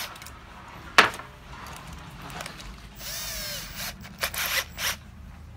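Handling noises from the opened septic air pump's plastic and metal parts: a sharp click about a second in, a brief wavering squeak a couple of seconds later, then three short knocks.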